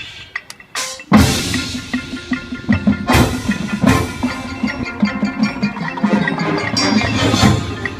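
Marching band playing: light ticking percussion, then the full band comes in with a loud hit about a second in and plays on with mallet percussion and drums, with two sharp crashes a few seconds later, thinning out near the end.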